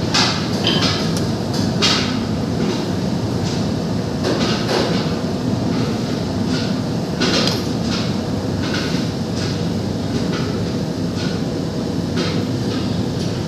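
A steady low rumble, with scattered light taps and scrapes of a metal fork on a steel tray as whipped egg white is spread over the kabab.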